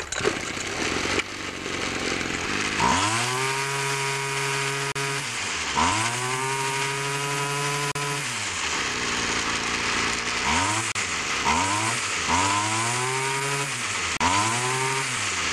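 Weed Eater string trimmer's two-stroke engine running on a freshly rebuilt carburetor, idling, then revved to full throttle and let back to idle six times: two long revs of about two seconds each, then shorter blips. It picks up cleanly each time and runs smoothly.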